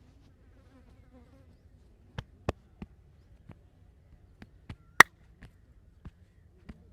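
A massage by hand: about ten sharp, irregularly spaced clicks and slaps on the body, starting about two seconds in, the loudest about five seconds in. A faint low buzz comes before them.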